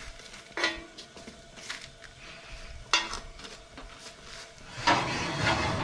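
Metal tongs clicking and tapping against a cast-iron pan as broiled poblano chiles are flipped, over a faint sizzle. A few separate clicks, then a louder, longer noisy stretch near the end.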